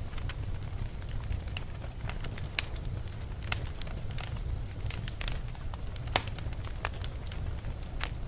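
Wood fire burning in a fireplace: a steady low rumble of the flames with irregular sharp crackles and pops, two louder pops about two and a half and six seconds in.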